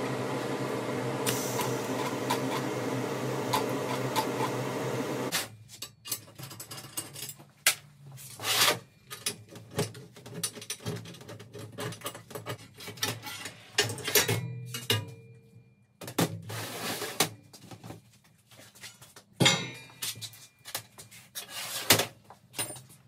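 A steady buzzing hum for about the first five seconds cuts off abruptly. Then comes a series of irregular metallic knocks and clatters as a stainless-steel tube exhaust manifold is moved and set down on a steel welding table.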